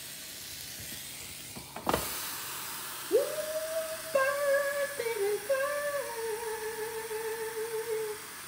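A woman humming a short, wavering tune, starting about three seconds in, over a faint steady hiss from a closed contact grill cooking chicken. A single click comes just under two seconds in.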